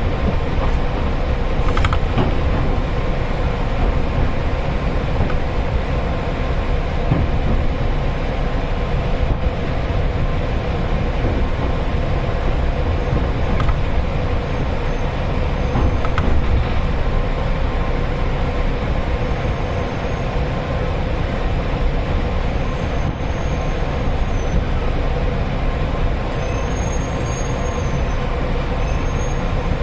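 Passenger train running, heard from inside the carriage: a steady low running noise with an even hum, no stops or sudden sounds.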